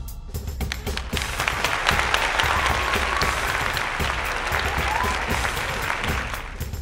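Audience applauding. The clapping swells about a second in and fades near the end, over low thuds.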